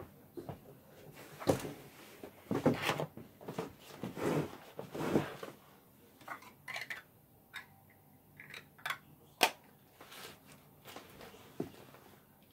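Irregular clicks, knocks and rustling of small objects being handled and set down, busiest in the first five seconds and sparser after.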